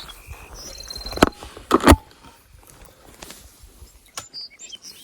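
Small birds chirping in short, high notes, broken by two loud knocks about a second apart early on and a fainter click near the end.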